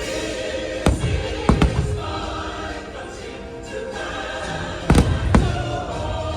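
A patriotic fireworks-show soundtrack with a choir singing over orchestra, with firework bursts going off over it: one about a second in, two close together just after, and two more about five seconds in.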